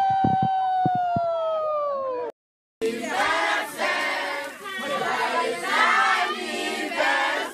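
A long held note ends about two seconds in, and after a brief cut a group of people sing and shout together in many overlapping voices.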